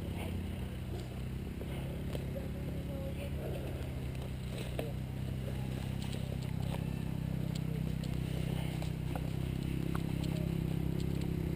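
A steady, low engine-like drone that grows a little louder in the second half, with scattered light clicks and scrapes over it.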